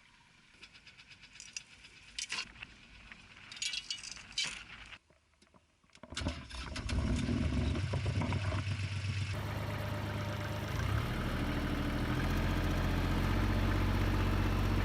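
Light jingling and rattling clicks, then about six seconds in a tractor engine starts and runs steadily, slowly getting louder.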